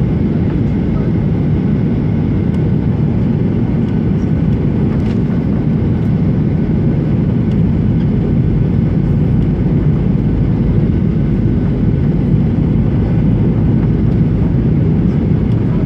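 Jet airliner cabin noise on the approach to land: a steady, loud, low rumble of engines and rushing air, heard from inside the cabin at a window seat.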